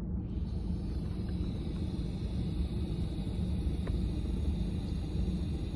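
Steady low rumble and hiss inside a car's cabin.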